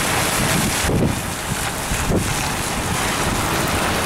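Strong wind buffeting the microphone over a steady hiss of heavy rain and running water, with gusts about one and two seconds in.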